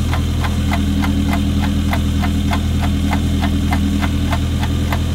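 1987 Suzuki Samurai's 1.3-litre four-cylinder engine idling steadily while it warms up, with a light, even ticking about four times a second.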